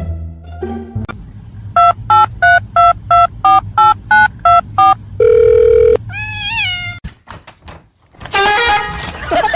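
A run of about ten short electronic beeps, evenly spaced and slightly alternating in pitch like a phone ringing, then a held tone and a few quick rising chirps. Clicks and a louder, rougher burst follow near the end.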